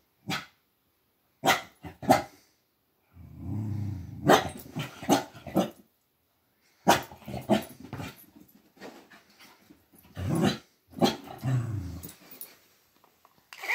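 Corgi puppy barking in short, sharp barks that come in clusters, with stretches of low growling between them, in excited play-aggression at a toy.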